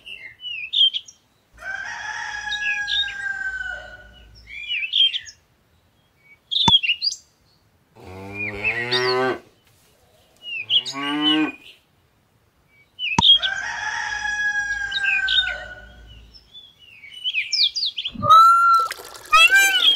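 Cow mooing twice near the middle, each a long pitched call that rises and falls, among scattered bird chirps; near the end a higher, wavering animal call begins.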